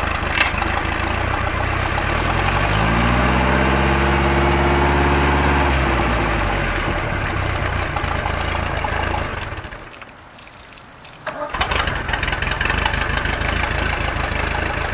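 MerCruiser sterndrive boat engine running on a flush hose, with water splashing out of the drive, on a test run after its lower exhaust bellows were replaced. It is revved up and back down a few seconds in. It drops out at about the two-thirds point, restarts about two seconds later and runs on steadily.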